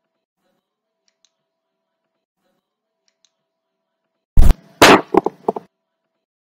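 Loud bang about four and a half seconds in, followed by a quick cluster of cracks and crashes lasting about a second, as a battle sound effect. Before it, only faint ticks about once a second.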